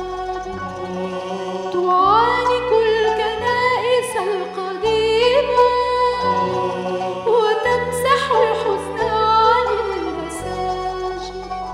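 A woman's solo voice singing an Arabic hymn in long, sliding, ornamented phrases, over a low sustained accompaniment whose notes change every second or two.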